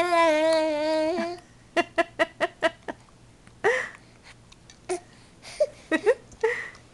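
Six-month-old baby vocalizing: a long, held, cry-like 'aaah' that breaks off about a second in, then a quick run of about five short staccato 'ah' sounds, followed by scattered short grunts and squeaks, her mouth on a plush toy.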